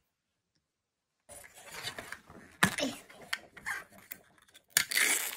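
Plastic toy packaging being handled and opened by hand: after about a second of silence, irregular rustling and rubbing with small plastic clicks, a sharp click about halfway through and a loud crinkle near the end.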